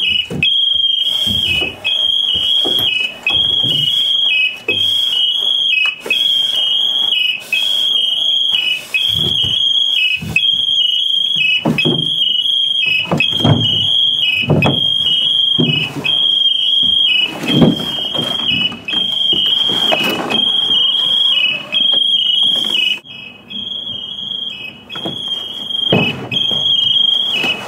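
High-pitched electronic alarm sounding over and over: a steady shrill tone with a short break about once a second, which briefly weakens near the end. Under it are irregular knocks, scuffs and rustles of gear as the firefighter climbs out over the sill.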